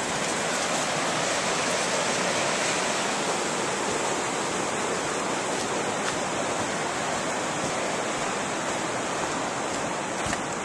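Steady rush of flowing river water, an even noise without letup.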